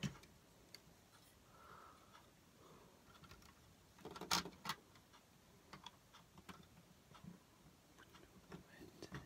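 Plastic toy building bricks clicking and knocking as the roof of a toy brick carriage is handled and pressed back into place: scattered light clicks, loudest in a short cluster about four seconds in.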